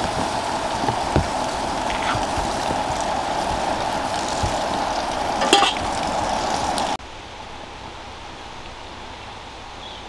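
Stingray frying in oil in a large wok: a steady sizzle with a couple of sharp clicks from the stirring spatula. About two-thirds of the way through it cuts off abruptly to a quieter, even outdoor hiss.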